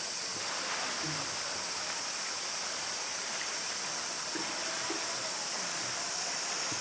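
Steady, shrill chorus of summer cicadas, an even high hiss that doesn't change.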